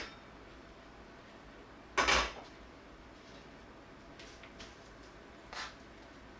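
A wok knocking and scraping on the grate of a tabletop gas stove as it is tilted to spread melting lard and set back down. The loudest knock-and-scrape comes about two seconds in, followed by a few light clicks and a smaller knock, over a faint steady hiss.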